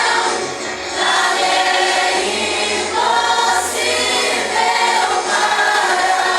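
Group of voices singing a Christian worship song together in long held phrases.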